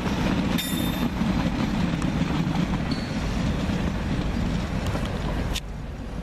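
Freightliner intermodal container train's wagons rolling past over the junction, a steady rumble of wheels on rail, with a faint high tone twice. The noise drops suddenly about five and a half seconds in.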